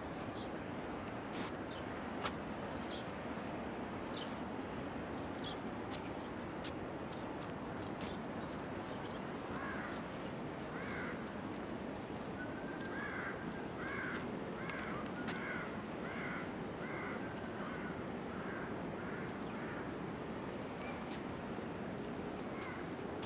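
A bird calling in a run of about a dozen short repeated calls roughly half a second apart, through the middle of the stretch, over a steady rushing noise.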